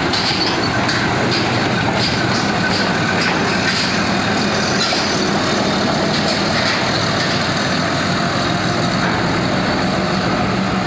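Heavy diesel engines running steadily, a loud drone with a constant low hum. A few faint metallic clicks come in the first few seconds.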